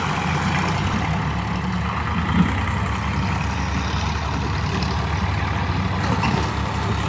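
Sonalika diesel tractor engine running steadily at low revs while pulling a trolley loaded with sand through loose ground, with one brief knock about two and a half seconds in.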